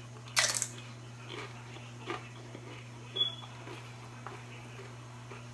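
A bite into a tortilla chip with one loud crisp crunch about half a second in, followed by chewing with a few smaller crunches and mouth noises. A steady low hum runs underneath.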